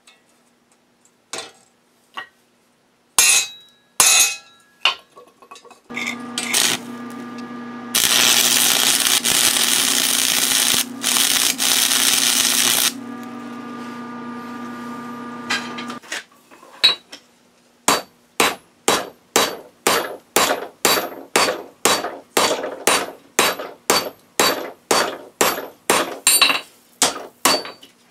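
Hand hammer striking hot steel on an anvil: a steady run of blows about two a second over the last ten seconds. Earlier come a few scattered taps and knocks, then a steady rushing noise with a low hum for about ten seconds in the middle.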